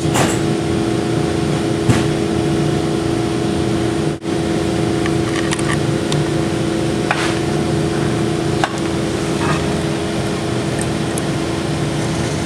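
Steady mechanical hum with a held tone, like a fan or other running machine, with a few faint light clicks of small parts being handled.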